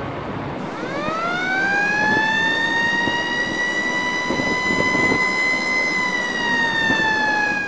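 A siren winding up in pitch over about a second and a half, then holding a steady wail that sags slightly near the end.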